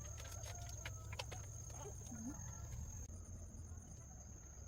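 Steady high-pitched insect drone over a low rumble, with a few faint clicks in the first second and a half.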